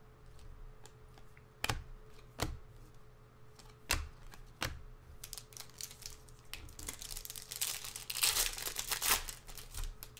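Basketball trading cards handled by hand, with a few sharp clicks and snaps in the first five seconds. Near the end a foil card pack crinkles for about three seconds as it is handled and opened.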